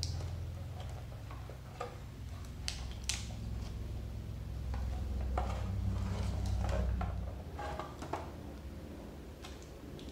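Handling noise from a scooter's battery compartment: scattered clicks, knocks and light rattles as a battery and its wiring are tugged and lifted out. Under it runs a low steady hum that swells for a few seconds in the middle.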